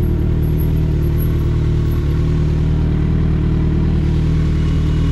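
Kawasaki Ninja sport motorcycle's engine running at a steady, even speed while riding, heard from on the bike.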